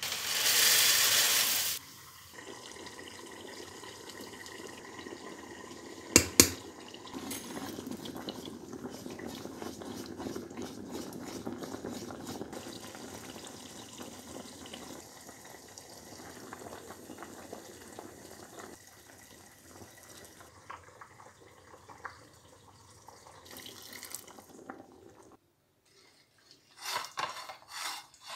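Cooking pots on the stove: a loud hissing burst for about two seconds as oil is poured into a big pot of boiling water, then a steady watery noise of boiling and pouring liquid, with one sharp knock about six seconds in. Near the end, a few short clinks and scrapes of a spoon stirring yogurt in a ceramic bowl.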